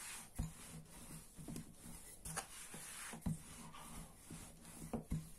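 Wooden rolling pin rolling dough out thin on a wooden board: soft rubbing with a few irregular light knocks of wood on wood.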